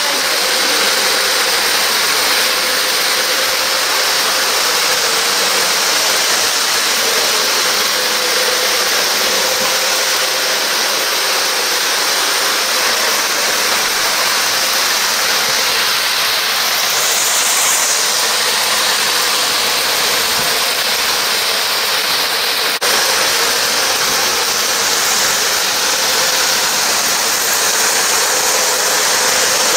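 Model train running on its track loop: a steady whir and rush of wheels on rails and electric motor with a faint steady tone. A brief click about two-thirds through.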